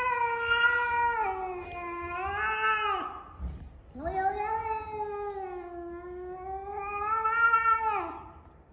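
A cat yowling in two long, drawn-out calls, the second beginning about four seconds in.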